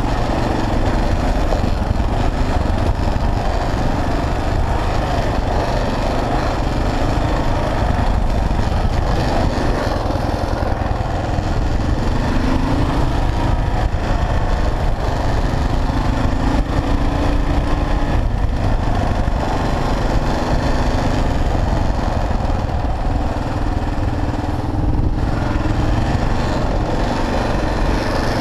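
Kawasaki KLR650's single-cylinder four-stroke engine running under way on a dirt road, its pitch shifting up and down with the throttle, over a steady rush of wind and road noise on a helmet-mounted camera.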